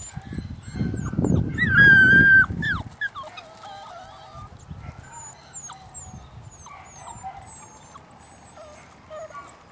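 Puppies whining and whimpering. A louder held whine comes about two seconds in over a burst of rumbling, scuffling noise, followed by softer scattered squeaks and whimpers.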